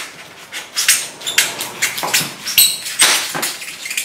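Kitchen knife sawing and slicing through a block of polystyrene foam: a run of short, scraping strokes, about two a second, some of them squeaky.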